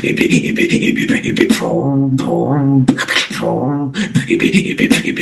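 A beatboxer performing through an online voice chat. A fast, dense run of mouth-made drum sounds, with sung bass-like notes stepping in pitch woven in midway.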